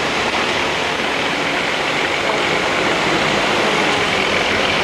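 Steady rushing noise of heavy construction machinery at work around a concrete mixer truck, with a faint engine hum underneath.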